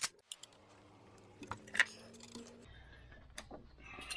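A few light metallic clicks and clinks of hand tools and parts being handled, the sharpest right at the start, with quiet between them.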